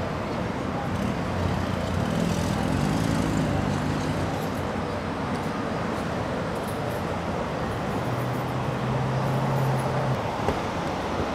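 Steady background din with faint, indistinct voices murmuring in it.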